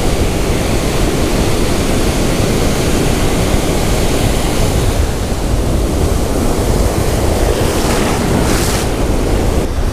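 Ocean surf breaking and washing up a sandy beach, a steady loud rush, with wind buffeting the microphone. Near the end a wave washes in close, its hiss brighter for a moment.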